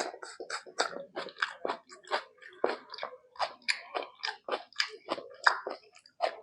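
Close-miked chewing of a mouthful of rice and mutton curry, a quick run of short mouth clicks and smacks at about four a second.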